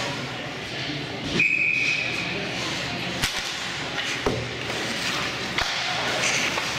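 A referee's whistle in an ice hockey rink blows one short, steady blast about a second and a half in. After it come several sharp cracks of sticks and puck, over the steady hum of the arena and voices.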